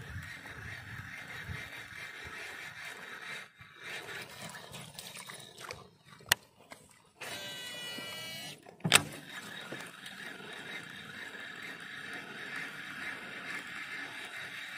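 A cast with a Shimano DC baitcasting reel: a click, then the spool whirring with a wavering whine for about a second and a half, ending in a sharp knock. A steady high-pitched background drone runs underneath.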